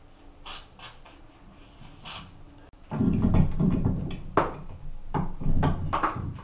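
A few short hisses of a WD-40 aerosol can spraying onto an old threaded pipe elbow that has been heated to free it. About three seconds in, a pipe wrench starts turning the seized fitting: loud rough metal grinding with sharp clicks and knocks.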